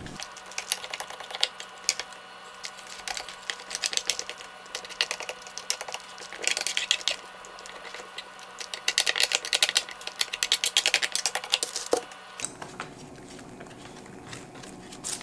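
Rapid runs of small clicks and scratches from hand work on a dirty Stihl MS271 chainsaw as its parts are cleaned. The runs thicken twice and stop a few seconds before the end.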